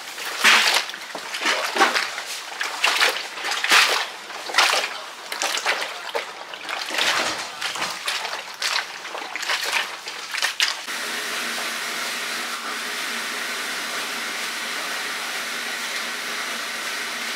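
Irregular wet splashing and sloshing, about one stroke a second. About two-thirds of the way through it gives way suddenly to a steady hiss with a faint hum.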